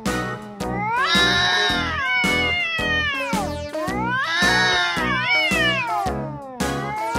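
Domestic cat yowling in a standoff with another cat: two long, drawn-out yowls, each rising and then falling in pitch. Background music with a steady beat plays under them.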